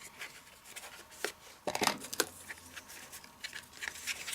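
Cardstock rustling and crackling as a paper strip is bent and wrapped around a folded card, with scattered small clicks and a cluster of sharper crackles about two seconds in.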